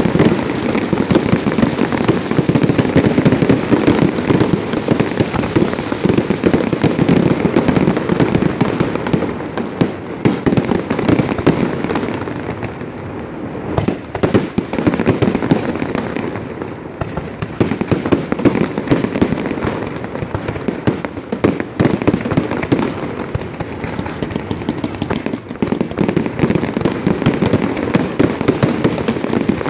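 Fireworks display: a dense, continuous run of bangs and crackling shell bursts, thinning briefly about halfway through before building again.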